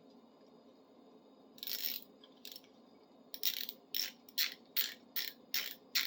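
Socket ratchet clicking as it is worked back and forth to undo a nut. There is a first run of clicks near two seconds in, then steady short strokes about two and a half a second from about three seconds in.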